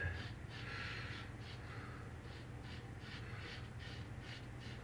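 Vintage Superior lather-catcher safety razor scraping through lathered stubble in short, faint strokes, about two or three a second, over a steady low hum.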